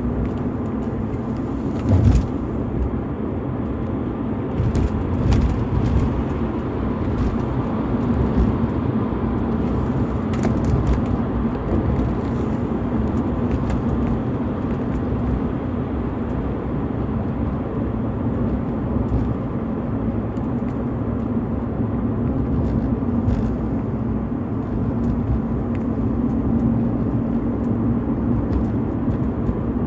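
BMW E46 320i's 2.0-litre M52TU B20 inline-six with the stock exhaust, running steadily with a constant hum. A few short clicks and knocks sound over it, the loudest about two seconds in.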